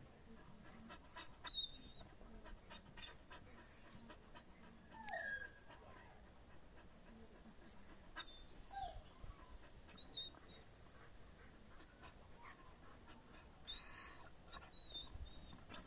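Dog whining in a handful of short, high-pitched whimpers, some falling in pitch, the loudest near the end: excited whining during flirt-pole play.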